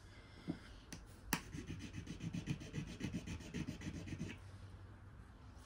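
Faint handling of a ring: two light clicks about a second in, then a quick run of soft rubbing and scratching ticks for about three seconds.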